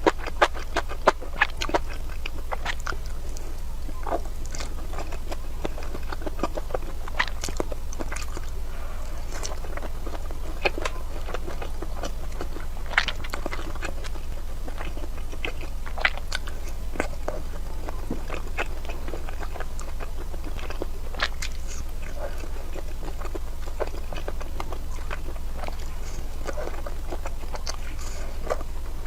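Close-miked eating: biting and chewing with sharp, crisp crunching clicks, a quick run of them in the first two seconds and then scattered bites. A steady low hum sits underneath.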